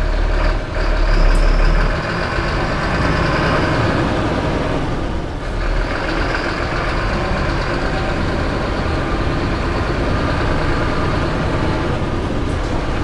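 Four-cylinder diesel engine of a Mercedes-Benz city bus running as the bus pulls away, heard from the driver's seat. A strong low hum fills the first two seconds, and the sound dips briefly about five seconds in.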